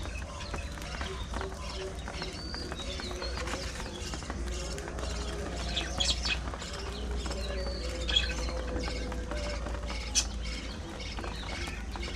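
A flock of budgerigars chirping and chattering continuously, with a few louder sharp calls about six, eight and ten seconds in, over a steady low hum.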